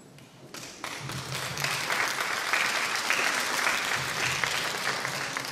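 Audience applauding. The clapping starts about a second in, holds steady, then begins to die away near the end.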